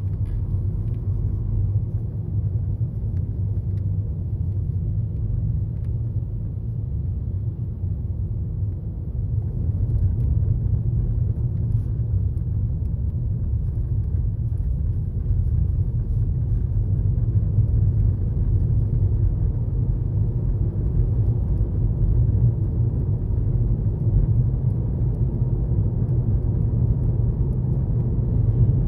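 Steady low road and engine rumble inside the cabin of a moving Toyota Estima minivan, growing a little louder about ten seconds in.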